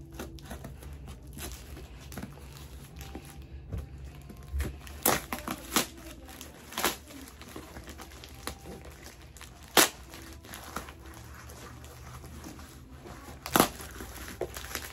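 A cardboard-and-paper shipping package being cut and torn open by hand, with packaging crinkling and several sharp rips.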